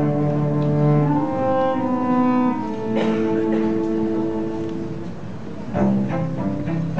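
Background music on a low bowed string instrument playing slow, long held notes, changing to short, detached notes near the end.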